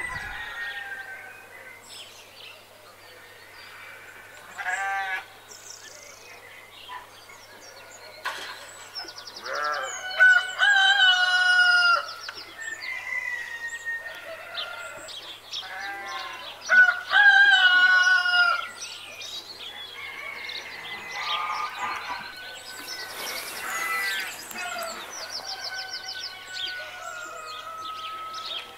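Farmyard birds calling: chickens clucking with a rooster crowing, many calls overlapping, the loudest two long calls about a third of the way in and a little past the middle.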